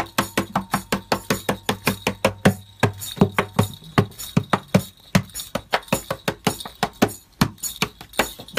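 Acoustic guitar strummed hard in a quick, steady rhythm of about four or five sharp strokes a second, each stroke ringing only briefly.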